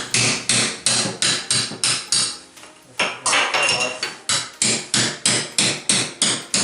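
Small hammer striking ceramic wall tile over and over, about three blows a second, with a brief pause a little over two seconds in before the blows resume: tile being broken off the wall.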